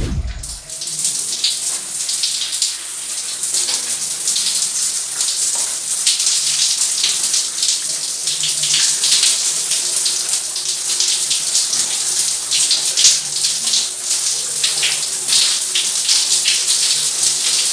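Shower running, water spraying and splashing onto a face and the tiled floor as hands rub a clay mask off the face: a steady hiss of spray with irregular spatters. A brief low thump comes at the very start.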